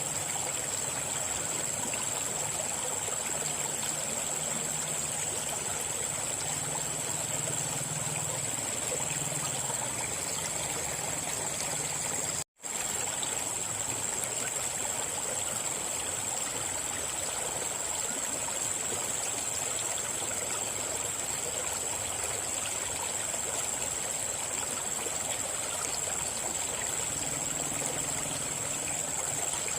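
River water flowing steadily, with a thin, steady high tone running above the rush of the water. The sound cuts out completely for a split second about twelve seconds in.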